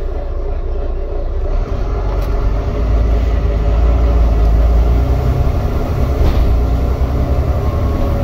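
Volvo B9TL Wright Gemini double-decker bus, heard from inside on the upper deck while it drives: the deep drone of its six-cylinder diesel engine with road and body noise. The low engine note grows louder about three seconds in.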